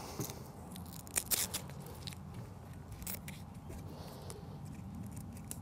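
Scattered small clicks and crackles as a cable-tidy strap is fitted by hand around a metal detector's shaft and cable.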